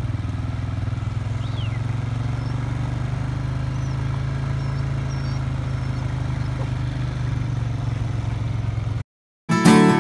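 Steady low hum of an idling engine, with a few faint bird chirps. About nine seconds in it cuts to a brief silence, then strummed acoustic guitar music starts.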